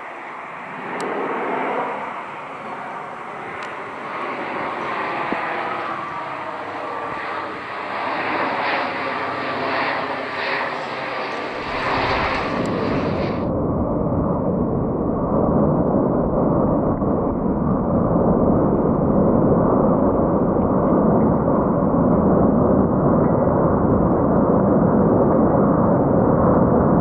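Airbus A400M Atlas's four turboprop engines with eight-bladed propellers droning as the aircraft approaches and passes low overhead, growing steadily louder. About halfway through, the sound abruptly turns duller: a heavy, dense rumble with the higher tones gone.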